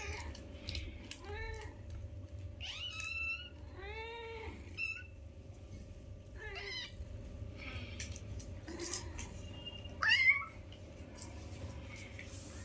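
Kittens mewing: a series of short, high, rising-and-falling mews, the loudest about ten seconds in, over a steady low hum.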